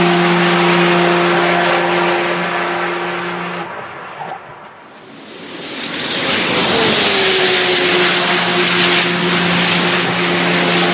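A car engine held at steady high revs, apparently a race car passing at speed. The sound fades out about four seconds in, then an engine note builds again, drops in pitch as it passes a second or two later, and holds steady.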